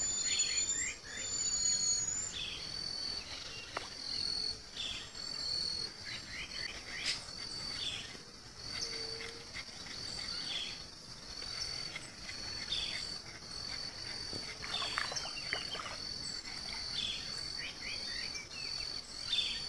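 Outdoor insect chorus, a steady high buzz with a rhythmic chirp repeating about twice a second, with birds calling in short falling notes every second or two and a high whistled call in the first couple of seconds.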